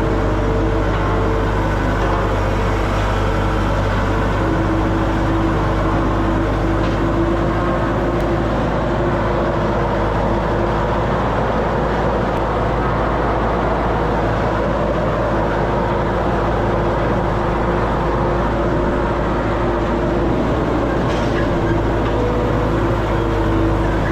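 Diesel engine of a vibratory road roller running steadily.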